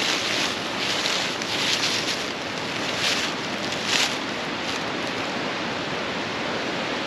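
Steady rushing of a nearby waterfall, with brief rustles about once a second from footsteps through brush.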